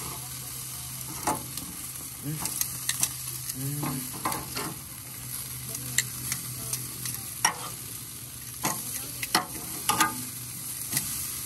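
Chicken sizzling on the wire grate of a jerk pan over a live fire, with metal tongs clicking and scraping against the grate and the meat as the pieces are turned: sharp clicks about every second or so over a steady sizzle.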